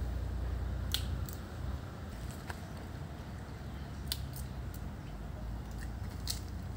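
A chacma baboon biting and chewing fruit and vegetables: scattered crisp clicks and crunches over a steady low rumble.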